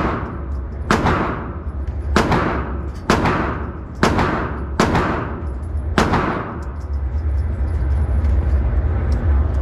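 A string of six gunshots about a second apart, fired at a steady pace during range qualification. Each shot is followed by a long echoing tail. A steady low rumble runs underneath, and the shots stop about six seconds in.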